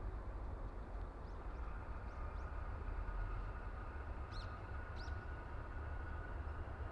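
A few short bird chirps, about five in all, over a low steady rumble.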